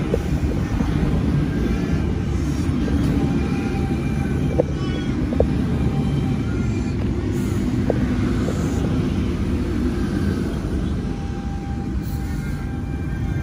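Sydney Trains C set double-deck electric train moving along the platform: a steady rumble with a few held whining tones from its chopper-controlled traction equipment. A few sharp clicks of the wheels over rail joints come in the middle.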